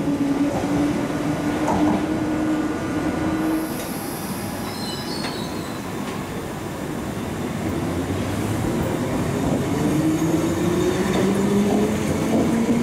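London Underground Piccadilly line 1973 Tube Stock train: a steady motor whine that stops about three seconds in, then rail noise, then a whine rising in pitch from about ten seconds in as the train pulls out of the platform, over wheel and track noise.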